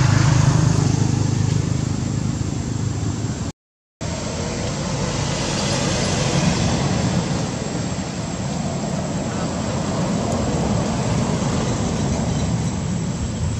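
Steady outdoor background noise with a low rumble, broken by a half-second dropout to silence about three and a half seconds in.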